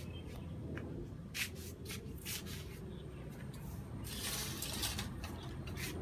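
Rustling and rubbing of a handheld phone camera being moved about, with a few short scrapes and a longer rustle about four seconds in. Underneath, a steady low hum from a running inverter air-conditioner outdoor unit.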